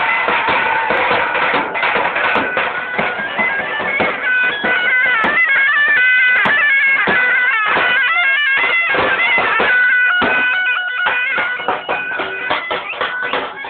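Music led by a reedy, bagpipe-like wind instrument playing a melody that steps up and down in pitch.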